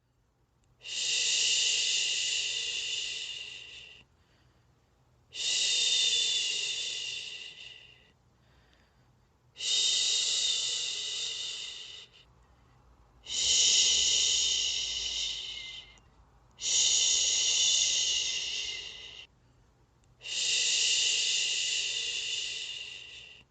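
A person's voice making long shushing 'shhh' sounds to lull a baby to sleep, six in a row, each about three seconds long and fading toward its end, with short pauses for breath between.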